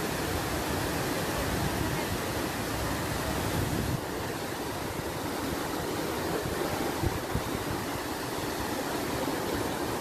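Steady rushing roar of a waterfall pouring into a pool, the low rumble easing slightly about four seconds in, with a brief thump about seven seconds in.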